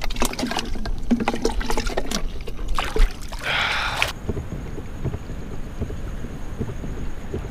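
Water splashing and dribbling as a bait bucket of live bait is handled in shallow water beside a kayak, with a few small knocks, and a short burst of splashing about three and a half seconds in. Then it changes suddenly to a quieter steady background.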